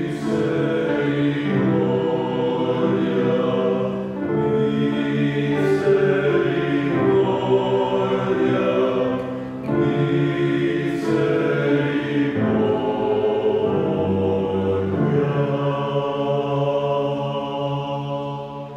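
Choir singing a chant in long held phrases, fading out near the end.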